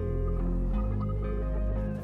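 Ambient background music with sustained low notes that change every second or so.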